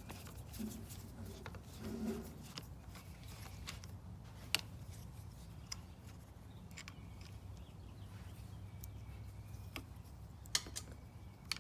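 Scattered light clicks and clinks of hand tools on small metal parts as a bicycle brake lever is worked on, over a low steady hum.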